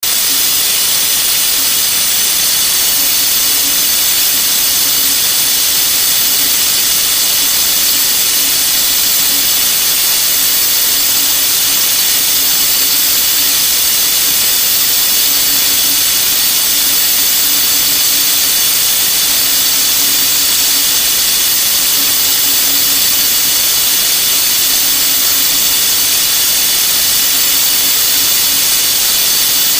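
Desktop CNC machine (HBS-S3040) running a machining job, its high-speed spindle giving a constant high-pitched whine and hiss that stays steady throughout.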